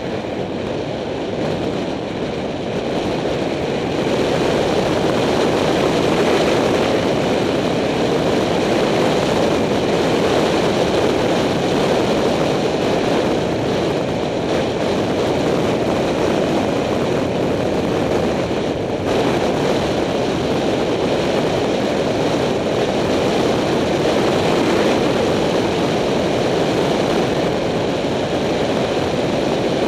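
Wind rushing over a helmet camera's microphone on a fast bicycle descent, a steady loud rushing noise that grows a little louder about four seconds in.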